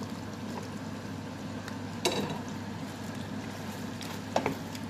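Thick sweet and sour sauce bubbling in a pan as fried chicken pieces are tipped in from a colander and stirred with a wooden spoon, over a steady low hum. There are two sharp knocks, about two seconds in and near the end.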